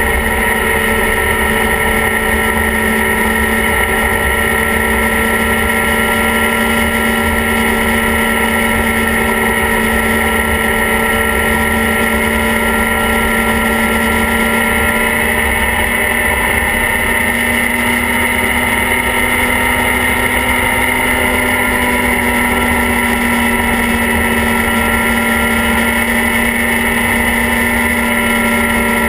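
Snowmobile engine running at a steady cruising speed, its pitch holding nearly even with a slight shift about halfway through.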